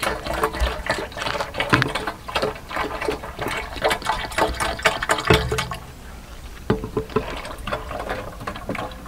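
Dishwashing liquid being poured from a plastic bottle into the neck of a large plastic water jug partly filled with liquid, with irregular small splashes and gurgles.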